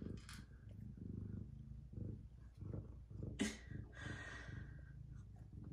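Young tabby cat purring, a low rumble that swells and fades with each breath. A short rustle about three and a half seconds in.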